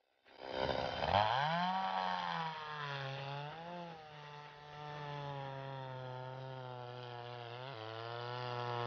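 Petrol chainsaw revving up about a second in, then running at high speed as its bar cuts down into lake ice to reopen a net hole; the engine note wavers under load and drops a step lower near the end.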